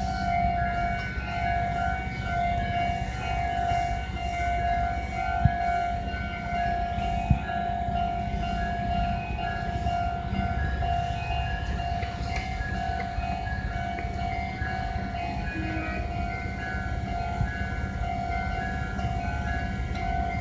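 Japanese railway level-crossing alarm ringing, a steady repeating electronic ding about twice a second, over a low rumble.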